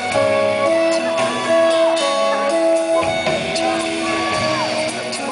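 Live smooth-jazz band playing: keyboard, drum kit and upright bass under a melody line of held notes that slide from one pitch to the next.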